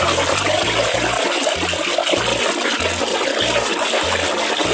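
Water splashing and sloshing steadily in a plastic basin as a hand scrubs a muddy toy under the surface.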